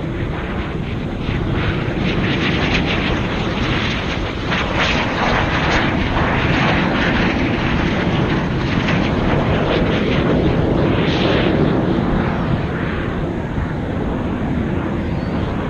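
Aircraft flying overhead during an air-show display: a steady, loud engine rumble that swells a little about ten to twelve seconds in.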